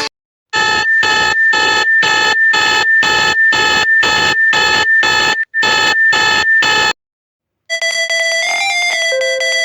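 Electronic alarm tone beeping rapidly, about three beeps a second over a steady high tone, cutting off about seven seconds in. After a brief silence a different electronic alert begins near the end, a sequence of held tones that step up and down in pitch.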